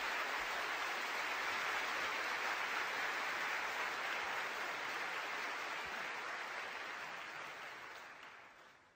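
Steady hiss-like background noise with no clear clicks, fading out over the last couple of seconds.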